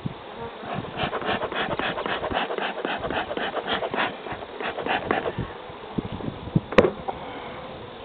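Bee smoker's bellows being pumped in quick puffs, about four a second for several seconds, smoking an open honey bee hive. A single sharp knock near the end.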